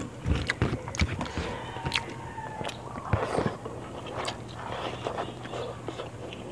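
Close-up eating sounds: chewing a mouthful of rice and fish in coconut sauce with wet smacking and clicking, and fingers working rice on a banana leaf.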